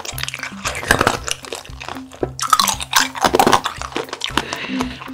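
Liquid and eating sounds: a plastic ladle scooping through watermelon punch with fruit chunks and ice, and chewing, over background music with a repeating bass line.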